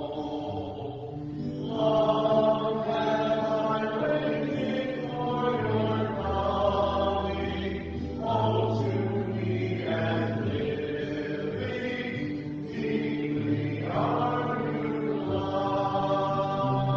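A slow hymn sung in long held phrases, with sustained organ-like bass notes underneath and short breaths between phrases.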